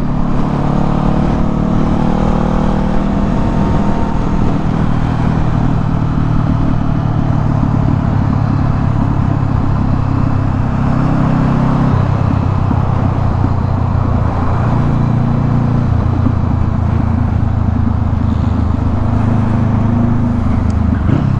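Motorcycle engine running at road speed under wind rush, its note stepping up and down in pitch a few times.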